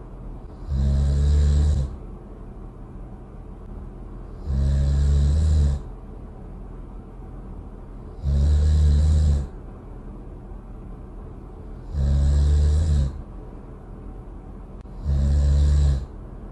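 Loud snoring: five evenly spaced snores, one about every three and three-quarter seconds, each a low-pitched snore with a breathy hiss lasting a little over a second.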